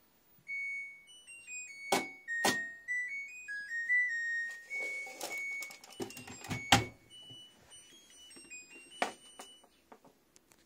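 LG front-loading washing machine playing its electronic end-of-cycle melody, a tune of single beeping notes that marks the end of the cycle. Several sharp clicks and knocks come through it, with the door being opened near the end.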